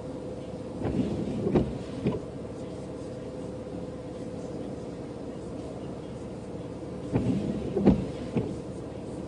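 Steady hum of a stopped car, heard from inside the cabin. Twice, about a second in and again about seven seconds in, a brief cluster of knocks and scraping rises above it.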